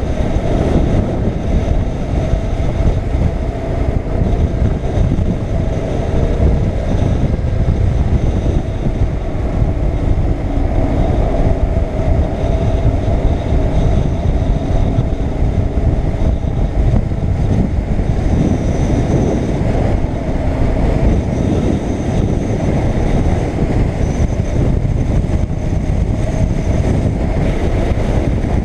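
BMW R850R's air-cooled flat-twin boxer engine running steadily as the motorcycle rides along at road speed, mixed with a heavy rumble of wind on the bike-mounted microphone.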